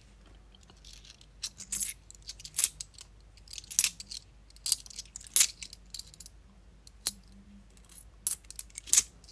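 Bimetallic £2 coins clinking against each other as they are thumbed one by one off a stack held in the hands: irregular metallic chinks about once or twice a second, some sharper than others.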